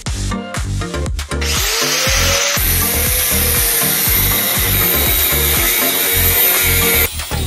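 Angle grinder grinding a steel bar clamped in a bench vise, a steady hissing grind that starts about a second and a half in and stops shortly before the end. Electronic music with a steady beat plays underneath.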